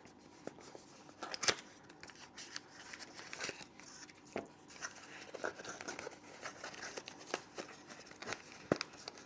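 Hands handling product packaging: scattered clicks and taps with light rustling between them as accessories are unpacked. The sharpest click comes about a second and a half in, and another comes near the end.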